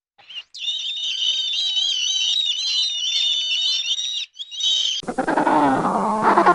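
High-pitched, wavering animal calls lasting about four seconds, then after a brief break a lower-pitched animal call whose pitch falls near the end.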